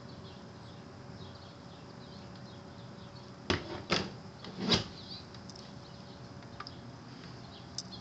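Three short knocks and rustles from a phone camera being handled, a little after the middle, over a low outdoor background with faint bird chirps.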